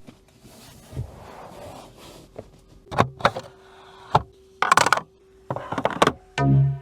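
Clicks and knocks from handling the doors and controls of a BMW i3, about half a dozen separate clicks with a faint steady tone under them. A short, loud, low buzzing tone comes near the end.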